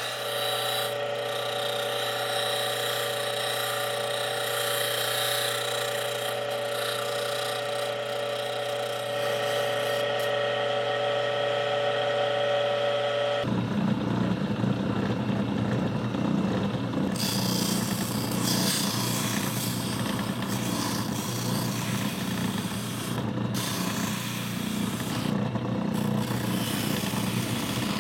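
Power tools working a small piece of pine. A steady motor whine runs first, then about 13 seconds in it switches abruptly to a coarser, lower machine sound.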